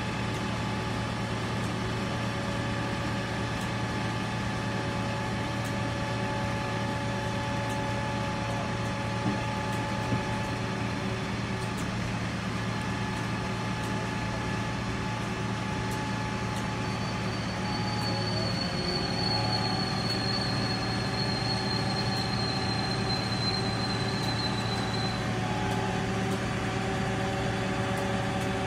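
Fire engine running steadily to drive its aerial ladder as the ladder extends. A high thin whine, slowly falling in pitch, joins for several seconds past the middle.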